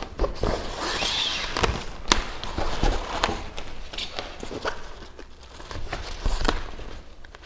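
Rustling and handling of a fabric kayak skin as it is hand-stitched over the frame. Thread is drawn through the seam, with a brief swish about a second in and scattered small clicks and taps throughout.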